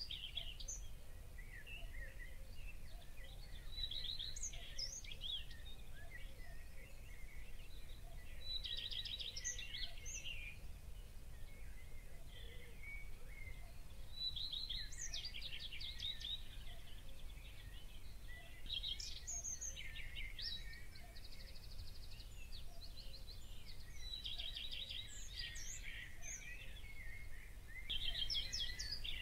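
A songbird singing the same short, rapid trilling phrase again and again, about every five seconds, over a low steady rumble.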